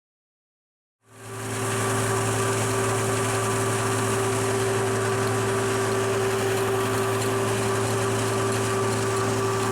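An engine running steadily at constant speed, fading in after about a second of silence.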